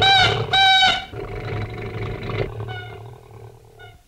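Small cartoon car running with a low, steady engine hum and sounding two loud, pitched horn honks in the first second, then two fainter honks near the end. The engine sound cuts off at the very end.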